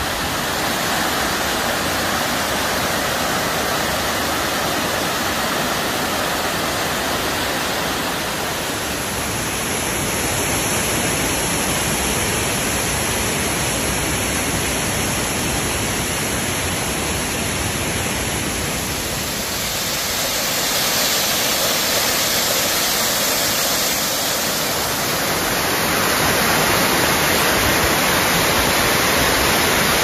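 Waterfall cascading over rocks: a steady, full rush of falling water, shifting slightly in tone about two-thirds of the way through and again near the end.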